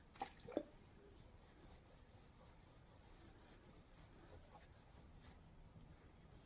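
Near silence: room tone, with two brief taps about half a second in.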